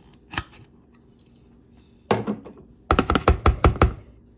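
Metal spoon working in a plastic mixing bowl: a light tap, a short scrape about two seconds in, then a fast run of sharp knocks, about six a second, as the spoon is knocked against the bowl.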